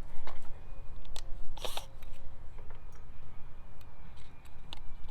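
Light clicks and a brief scrape of small hardware being handled and set against a wooden door, with a short scraping burst about a second and a half in.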